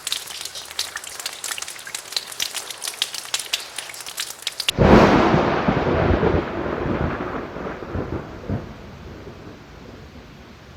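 Rain falling, with many individual drops ticking sharply close by. About halfway through it cuts suddenly to a loud clap of thunder that rolls and slowly fades over several seconds under steady rain.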